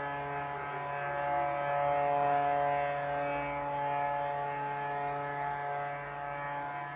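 Electromechanical civil-defence sirens sounding a test alarm, holding a steady tone. One siren falls in pitch about a second in as it winds down. Birds chirp faintly over them.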